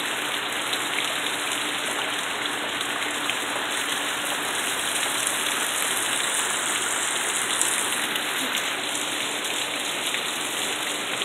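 Heavy rain falling steadily on trees, grass and a wooden fence: an even, unbroken hiss of rain.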